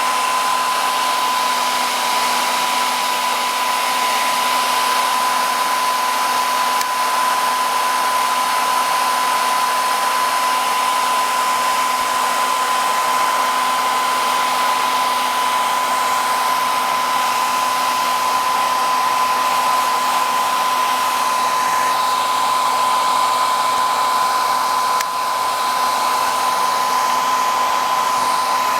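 Electric hot-air blower, like a hair dryer, running steadily on one setting: a constant rush of air with a steady high whine.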